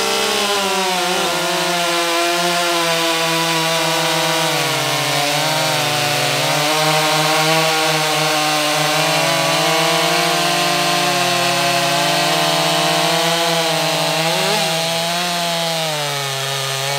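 Two professional two-stroke chainsaws, a Stihl MS 261 C-M and a Husqvarna 550 XP Mark II, cutting through a log at full throttle, the engine note wavering as the chains load up in the wood. About fourteen seconds in, the pitch dips and rises briefly.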